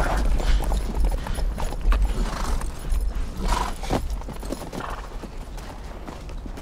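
Hoofbeats of a group of horses riding in over sandy ground, with a deep rumble underneath; they ease off and grow quieter in the second half as the riders pull up.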